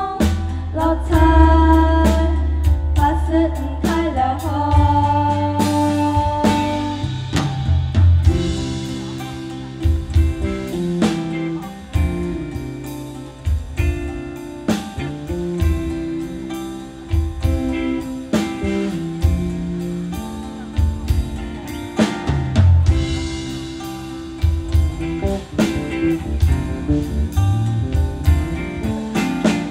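Live band playing a Hakka folk-rock song: two girls sing a line in unison for the first several seconds, then an instrumental interlude follows with plucked strings, bass and a drum kit keeping a steady beat.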